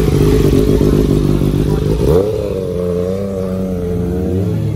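Sport-bike engines running at low revs as racing motorcycles ride slowly past one after another. About two seconds in, one bike's note rises sharply as it is revved, then wavers up and down.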